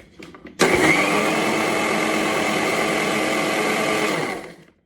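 Electric mixer grinder switched on about half a second in, running steadily with a whine for about four seconds while blending food, then switched off and spinning down.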